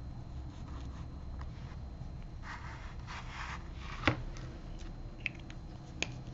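Pen scratching faintly on sketchbook paper in short strokes, then a sharp click about four seconds in and a couple of lighter ticks.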